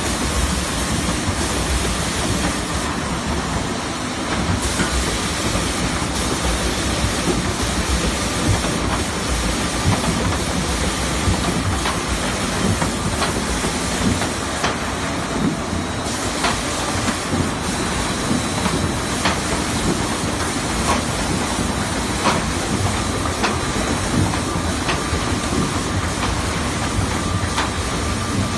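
Industrial three-head belt sanding machine running with plywood sheets passing through it: a steady rushing noise with scattered faint clicks and a faint steady whine.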